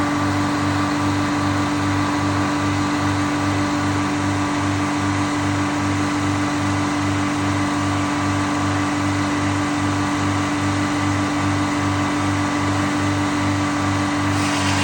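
Steady machine drone of the sawmill running, with a fixed hum and a low, even pulse about two and a half times a second.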